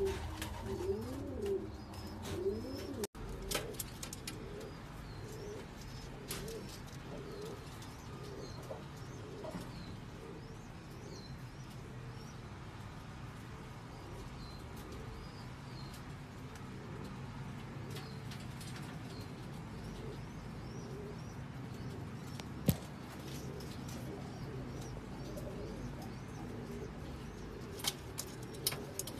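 Jacobin pigeons cooing, low rising-and-falling coos that are loudest in the first three seconds and fainter after a sudden break. Faint high chirps sound in the background, with a single sharp click about two-thirds of the way through.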